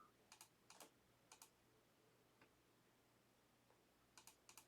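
Faint clicking on a computer, in close pairs: several in the first second and a half, then a few more near the end.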